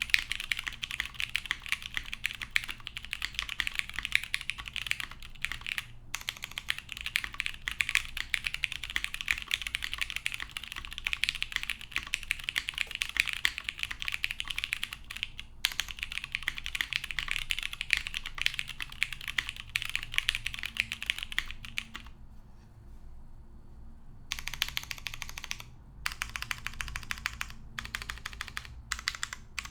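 Steady, fast typing on a gasket-mounted Keycult No. 2 tenkeyless mechanical keyboard. It has lubed vintage Cherry MX Brown tactile switches on a half polycarbonate plate and GMK keycaps. The key clicks run in quick streams, with brief pauses and a break of about two seconds about two-thirds of the way through before the typing resumes.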